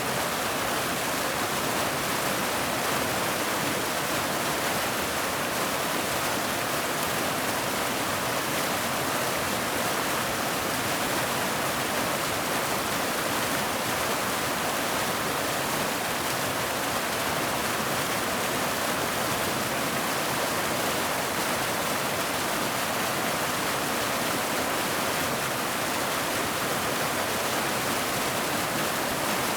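Waterfall: a steady rush of falling water, even and unchanging.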